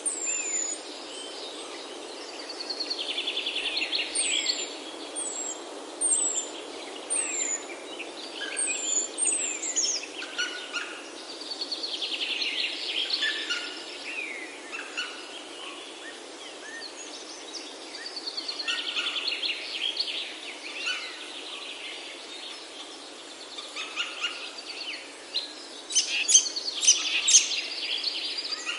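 Several birds singing and calling: short falling whistles and buzzy trills, loudest near the end, over a steady background hiss.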